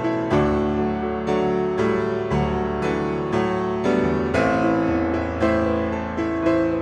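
Background piano music: a slow solo piano piece, notes struck about twice a second, each ringing out before the next.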